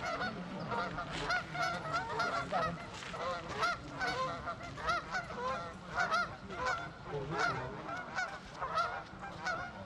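A flock of geese honking, many short calls overlapping, several a second, without a break.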